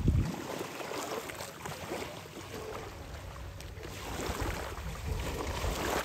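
Sea water splashing and sloshing from a front-crawl swimmer's strokes, with wind buffeting the microphone in gusts, strongest right at the start.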